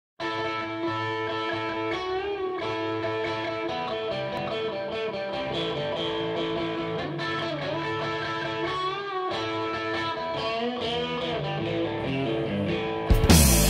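Electric guitar playing a solo intro of ringing notes and chords, some notes bent in pitch. About thirteen seconds in, the full rock band comes in, much louder.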